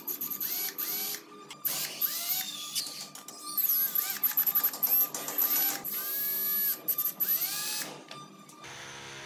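Cordless drill driving a screw into the hub of a wooden wheel, its motor whirring up and down in a string of short trigger bursts as the screw bites into the wood. The drilling stops about a second before the end.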